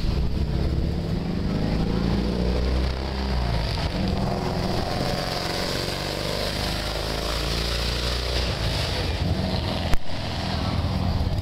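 Motorcycle engine running with a steady low hum, and a single sharp click about ten seconds in.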